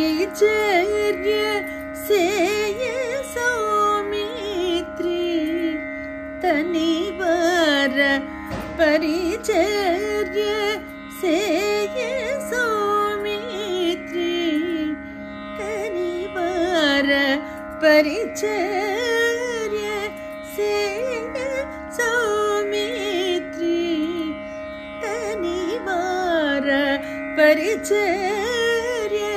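A woman singing solo Carnatic vocal music in raga Yadukula Kambhoji, a single melodic line with many slides and ornaments, over a steady drone.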